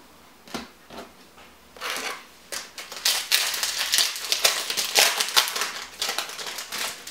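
A foil trading-card booster pack being torn open and crinkled in the hands: a few light clicks, then a dense run of crackling rustle from about two seconds in until shortly before the end.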